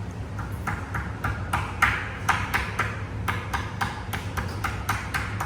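Quick, even tapping or clicking, about four sharp strikes a second, over a steady low hum.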